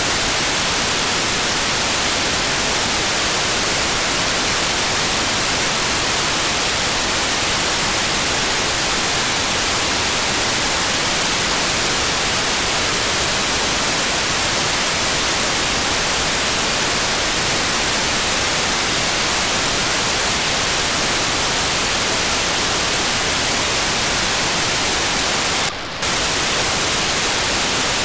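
Steady hiss of static from an RTL-SDR receiver's FM demodulator tuned to 435.7 MHz, waiting on the weak 4800-baud GMSK data signal of the D-Star-ONE Sparrow CubeSat. Near the end the hiss briefly drops and changes for about a third of a second, as a short data burst from the satellite comes in.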